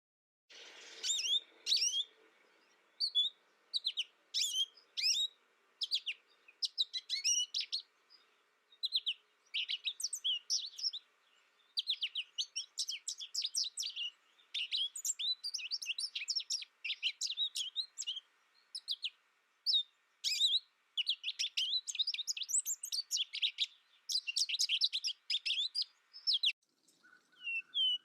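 Songbirds singing: a dense run of quick, high chirps and twittering notes, starting about half a second in and briefly breaking off near the end.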